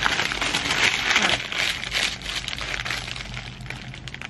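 Paper sandwich wrapper crinkling and rustling as it is handled, loudest in the first two seconds and dying down toward the end.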